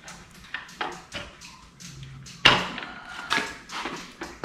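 Caster wheels being pushed and knocked into the tube legs of a garment rack: a string of sharp clicks and knocks, the loudest about halfway through.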